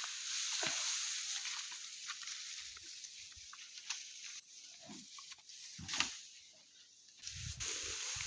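Food sizzling in a cooking pot: a steady hiss with scattered small pops that dies down about halfway through, then a few dull knocks near the end.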